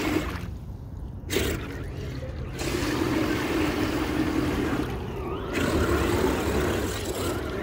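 Radio-controlled 4x4 scale truck driving through muddy water: its small electric motor runs while water sloshes and trickles around it, with a brief rising and falling whine about five seconds in.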